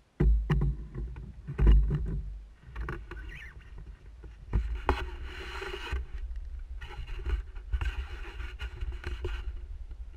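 Handling noise from a camera mounted on a canoe being grabbed and turned around: loud thumps soon after the start and again about a second and a half in, then clicks, knocks and two stretches of rubbing scrapes against the camera.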